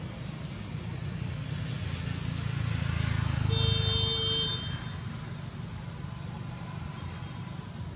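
A steady low rumble swells to a peak partway through and then eases off. At the peak comes a brief steady tone with a high ringing cluster above it, lasting about a second.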